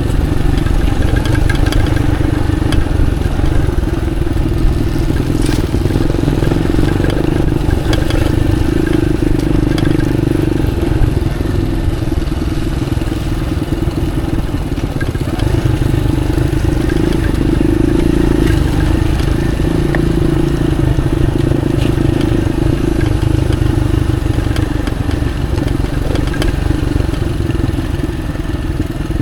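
Motorcycle engine running steadily as the bike is ridden along a dirt track, with a constant low rumble and a few light knocks.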